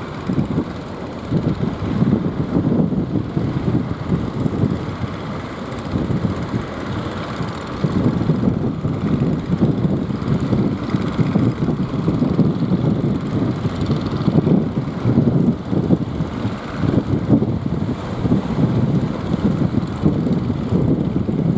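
Strong wind buffeting the microphone in uneven gusts, a heavy low rumbling noise.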